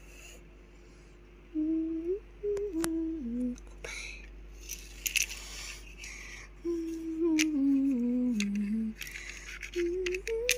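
A person humming a slow tune in short phrases. Light taps and patches of rubbing from a hand working on a whiteboard come in between.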